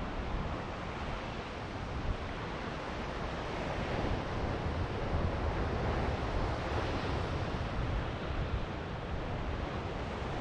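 Ocean surf washing on the beach as a steady hiss that swells gently in the middle, with wind rumbling on the microphone.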